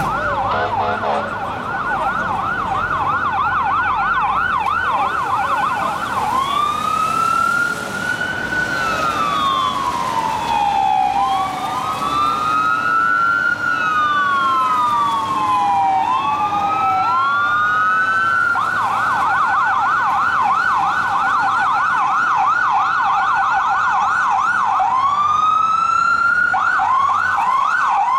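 Fire engine's electronic siren going Code 3, switching between a fast yelp and a slow rising-and-falling wail. It yelps for the first few seconds and then wails for about twelve seconds, with two wail tones overlapping out of step. It yelps again for several seconds and returns to the wail near the end.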